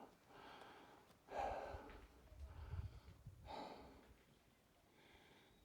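A hiker breathing hard on an uphill trail: two soft exhalations about two seconds apart, with faint low thuds between them.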